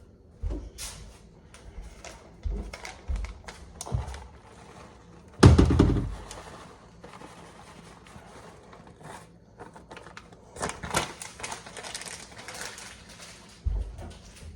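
Kitchen handling noises: scattered clicks and knocks of utensils and containers, with one louder dull thump about five and a half seconds in and a stretch of rustling near the end.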